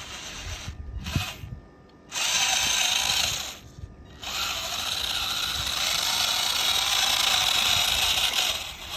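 The battery-powered electric motor and gearbox of an RC model tractor whir as it pulls a disc harrow through sand. The motor starts and stops twice, then runs steadily from about four seconds in.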